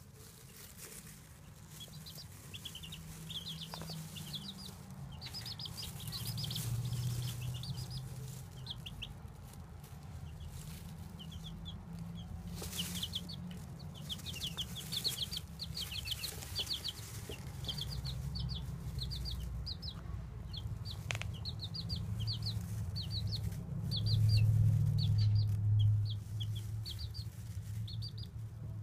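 Baby chicks peeping: rapid runs of short, high cheeps, several a second, going on and off throughout. A low rumble runs underneath and swells briefly near the end.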